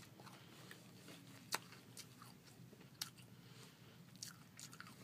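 Quiet close-up chewing of a snack, with a few short sharp crunchy clicks spread through it.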